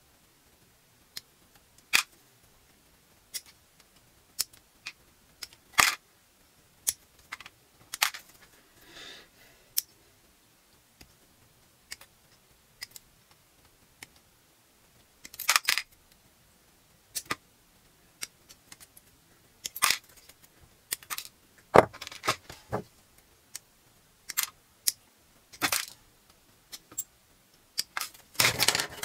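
Side nippers snipping plastic model-kit parts off a gold-plated runner: sharp, separate clicks at irregular intervals a second or so apart, with a quick cluster near the end. Small plastic parts and the runner also tick against plastic tubs.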